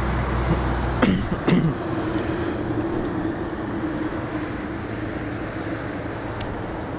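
Road traffic noise with a steady vehicle hum. There are two sharp knocks about a second in, followed by rubbing as the body-worn camera is handled.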